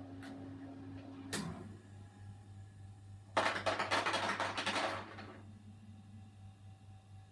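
Refrigerator ice maker: a hum cuts off with a click about a second in, then a batch of ice cubes clatters down into the bin for about a second and a half, over a low steady hum.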